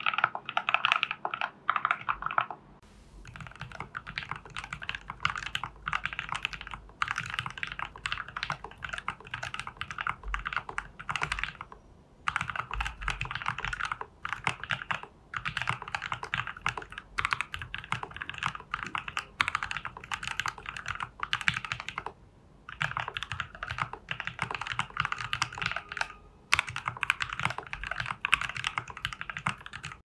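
Fast typing on a TU40 plastic-case 40% mechanical keyboard fitted with lubed, broken-in Matcha Ice switches, Owlab stabilizers and XMI keycaps, with case foam, PCB foam and tape mod. Dense runs of keystroke clacks a few seconds long, broken by short pauses.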